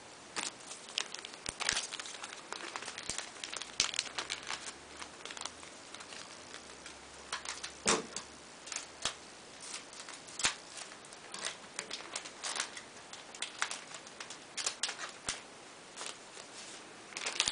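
Foil booster-pack wrapper crinkling and tearing as a Yu-Gi-Oh card pack is opened, in irregular sharp crackles.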